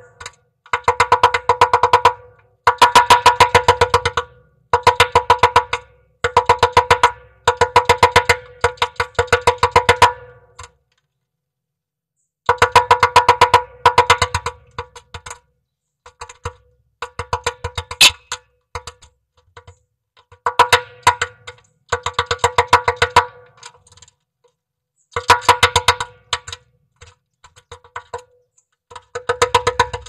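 Woodpecker hammering at a wooden nest box's entrance hole: rapid series of sharp wooden knocks in bouts of one to two seconds, with short pauses between bouts.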